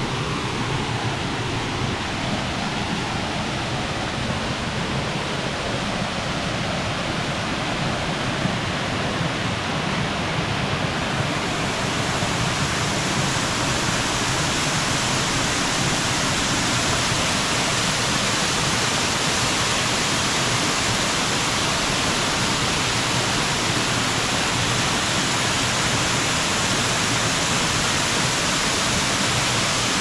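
Small waterfall splashing down over boulders into a shallow pool: a steady rushing hiss of falling water that grows a little louder and brighter about eleven seconds in.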